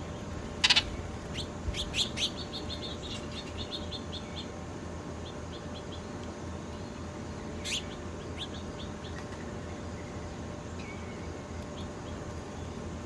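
Songbirds chirping: a sharp loud call, then a quick run of repeated chirps, and a few more scattered calls, over a steady low background hum.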